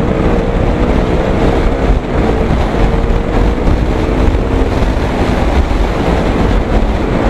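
Motorcycle riding at speed, a steady engine hum under heavy wind noise on the microphone.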